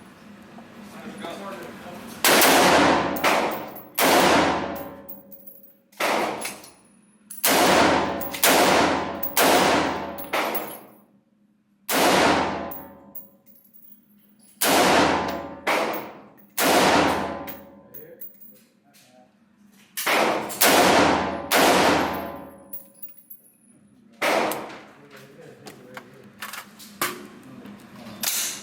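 Gunshots at a shooting range: about fifteen single shots at irregular intervals, from under a second to a few seconds apart, each with a sharp crack and a ringing decay.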